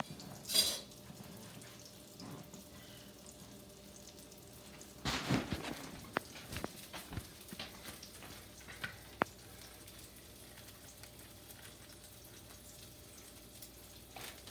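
Beef burgers frying in a pan, with a faint steady sizzle. A sharp clatter comes just after the start, and a run of kitchen knocks and clicks follows from about five to nine seconds in.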